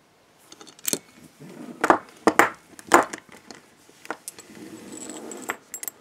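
Metal clinking and clattering as the 1941 MCI handcuffs and their tubular keys are handled and set down: a series of sharp clinks in the first three seconds, then lighter clicks and a soft rustle.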